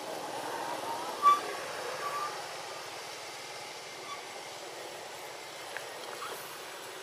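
Steady outdoor background noise, like far-off traffic. About a second in there is one short high squeak, and a few fainter chirps follow.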